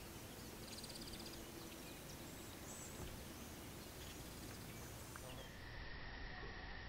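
Faint swamp ambience: a low, even outdoor background with scattered small bird chirps and a short rapid trill about half a second in. About five seconds in, a steady high-pitched whine sets in.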